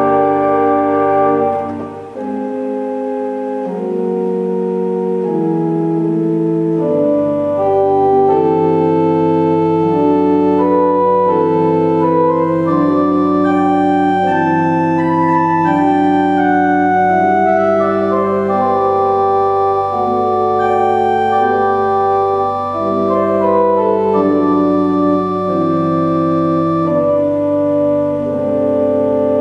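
Aeolian-Skinner pipe organ (Op. 1096) playing sustained chords with a moving upper line. The deep pedal bass drops out about two seconds in and comes back about five seconds later.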